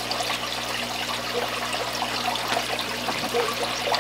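Water splashing and trickling steadily into a koi tank where the circulating water returns through pipes and hoses, with many small bubbles and droplets popping at the surface over a steady low hum.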